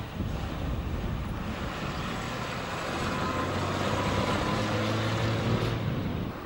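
Classic saloon cars driving past on a road: engine hum and tyre noise that swell to their loudest about five seconds in as one passes close, then drop away suddenly at the very end.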